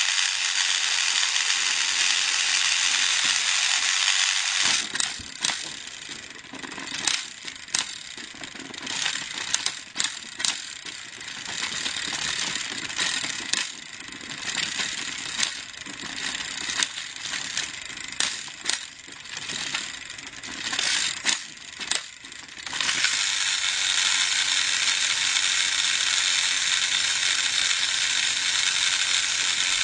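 Battery-powered toy train motors whirring through their plastic gearboxes, a steady high buzz for about the first five seconds and again for the last seven or so. In between the buzz drops away into an uneven run of sharp clicks and clacks.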